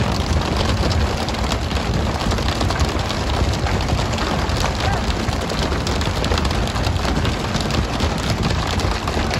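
Steady, rain-like hiss and patter of water spray falling on the sea and deck, with many small taps through it and a low rumble underneath.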